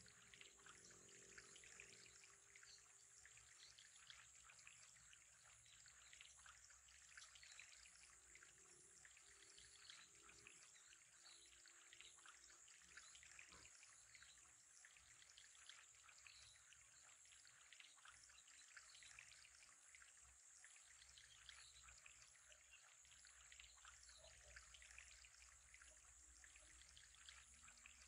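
Faint steady trickle of water into an aquarium, with many tiny drips and pops.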